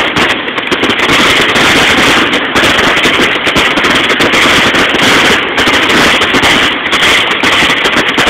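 Fireworks finale barrage: many shells bursting in rapid succession, so the bangs and crackles run together into one loud, continuous rumble and crackle.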